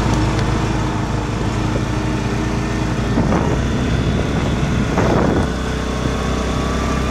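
ATV (quad bike) engine running steadily under way on a gravel track, with road noise and two short knocks about three and five seconds in.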